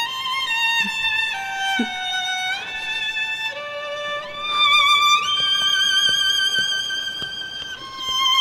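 Background score: a violin playing a slow melody of long held notes with vibrato, stepping from pitch to pitch.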